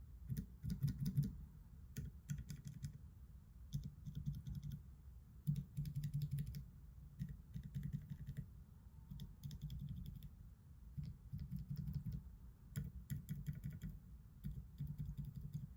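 Mechanical keyboard switches mounted on the metal plate of a 3x3 switch tester, with no keycaps on, pressed and released in quick runs. The keystroke clicks come in several bursts with short pauses between them.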